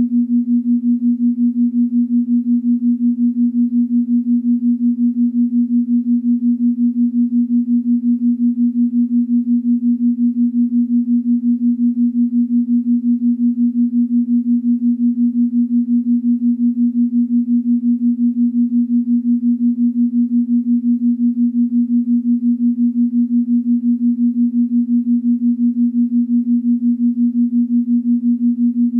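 Steady electronic pure tone, low-pitched and hum-like, pulsing evenly several times a second: a binaural-beat meditation drone meant for headphones.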